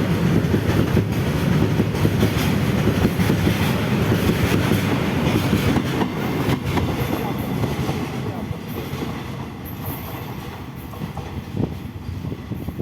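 Container goods train running past, its wagon wheels clattering over the rail joints with a heavy rumble. The sound fades away over the second half.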